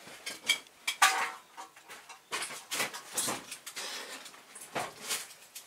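A string of light metallic clinks and knocks at irregular intervals, about a dozen over several seconds, from things being handled at the vehicle.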